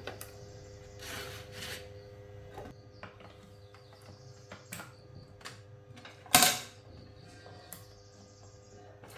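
Scattered small clicks and light knocks of hand-handling, with one louder knock about six seconds in, over a faint steady electrical hum.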